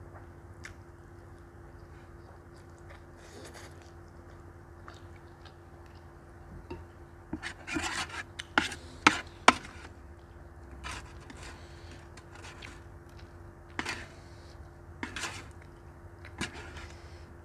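Wooden spoon and wooden chopsticks scraping and clacking against a metal baking tray while gathering leftover noodles. A quick cluster of sharp clacks and scrapes comes about halfway through, then a few single knocks near the end.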